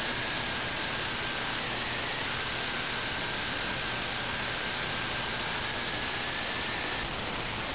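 Steady AM radio static hiss from an RTL-SDR receiver tuned across the medium-wave broadcast band, with a faint steady whistle that stops near the end.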